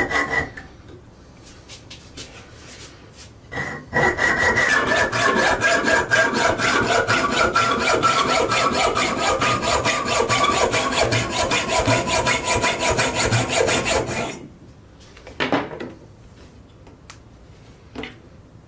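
Short length of copper pipe being sawn by hand: dense, rapid rasping strokes for about ten seconds, with a metallic ringing from the pipe that slowly falls in pitch as the cut goes on. The sawing stops suddenly, followed by a few light knocks.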